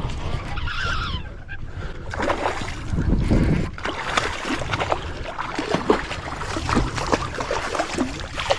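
Water splashing with quick knocks and clicks, typical of a hooked bass thrashing at the surface beside a kayak.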